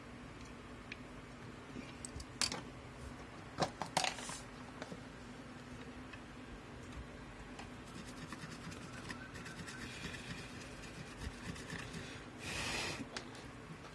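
Small repair tools scraping and clicking on a laptop motherboard, with a few sharp clicks two to four seconds in and a short hiss near the end, over a steady low hum.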